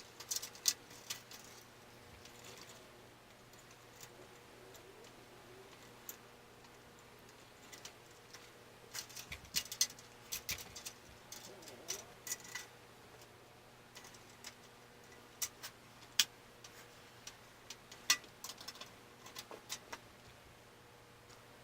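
Scattered light clicks and taps of hands fitting computer parts and a PC case together during assembly, in irregular clusters over a faint steady hum.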